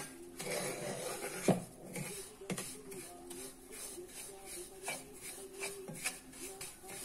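Wooden spatula scraping and stirring semolina (rava) being roasted in ghee in a nonstick pan: an irregular rasping rub with each stroke, and a sharper knock about one and a half seconds in.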